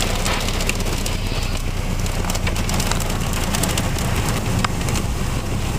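Wind-driven rain and hail hitting a car, heard from inside the cabin: a steady rush with scattered sharp ticks of hailstones striking the body and glass, over a steady low rumble.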